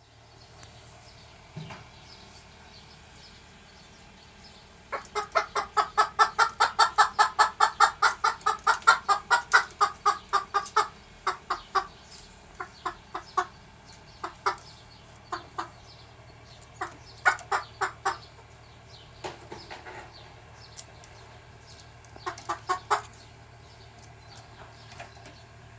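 Bantam rooster clucking: a fast, even run of short clucks, about five a second, starting about five seconds in and lasting some six seconds, then scattered single clucks and short bursts.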